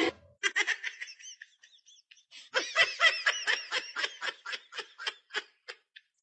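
High-pitched laughter in two bouts of rapid ha-ha pulses. The second, longer bout slows and fades away.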